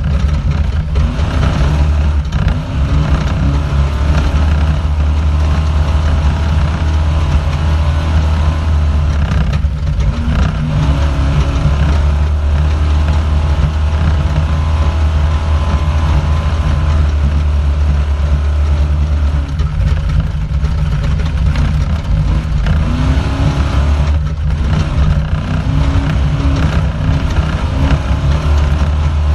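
Off-road race vehicle's engine heard from inside the car, running hard at race speed with a heavy, loud rumble. The revs rise and fall several times as the throttle comes on and off.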